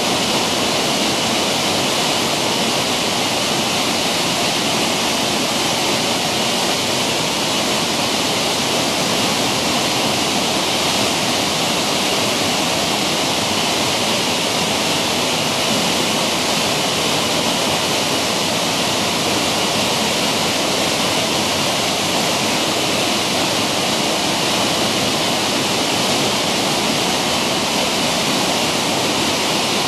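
Waterfall pouring steadily: a loud, even rush of falling water that does not change.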